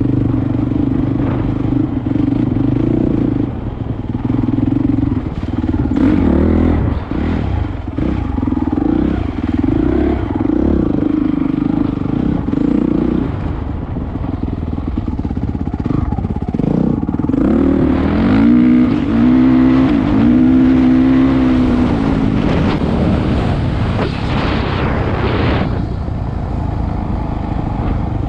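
Single-cylinder enduro motorcycle engine heard from on the bike, running under constantly changing throttle over rough ground. About two-thirds of the way through it revs up and down several times in quick succession.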